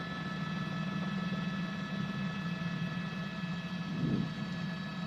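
Steady drone of a news helicopter's cabin on the reporter's open microphone: a low hum with several steady high whining tones over it, and a brief faint sound about four seconds in.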